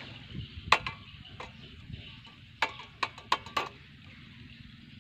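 Several sharp clicks or taps: one about a second in, then a quick run of four about two and a half seconds in, over a faint steady outdoor background.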